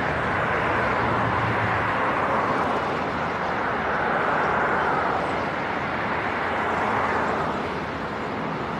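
Road traffic passing on a bridge: a steady rush of tyres and engines that swells and eases several times as vehicles go by.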